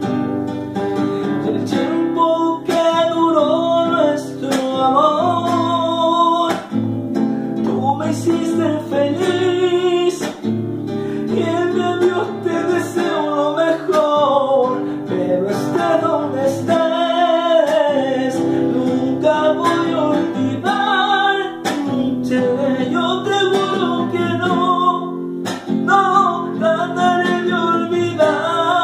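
A man singing a slow ballad with his own strummed acoustic guitar accompaniment, the voice carrying a melody that rises and falls over steady chords.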